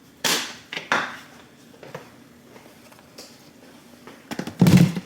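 Kitchenware being handled: two brief clatters in the first second, a quiet stretch, then a louder knock near the end.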